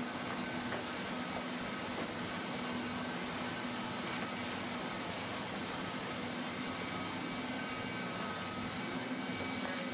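Hand-held hot-air welder running, its blower giving a steady hiss with a low hum, while it heat-welds a seam in white roofing membrane under a silicone roller.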